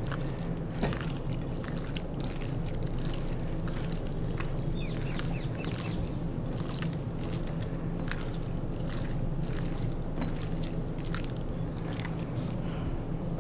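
Gloved hand kneading goat meat in an oily spice marinade in a glass bowl: irregular wet squelches and small clicks, over a steady low hum.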